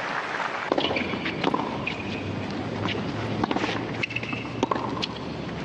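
Tennis ball being bounced and struck with rackets on a hard court: sharp knocks at irregular intervals over steady stadium background noise.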